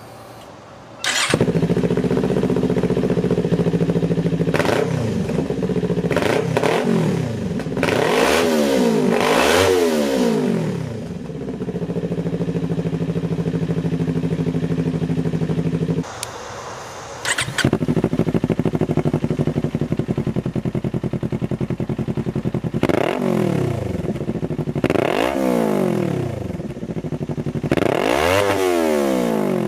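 Kawasaki Ninja 400's parallel-twin engine through an MMW BRAP slip-on exhaust. It starts about a second in, idles, and is blipped up and back down several times. The engine sound drops away about halfway through, starts again a second or so later, and is revved in a few more blips.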